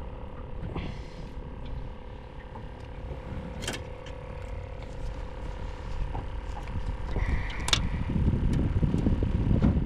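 Scattered mechanical clicks and light knocks of fishing tackle being handled in a jon boat, over a steady hum.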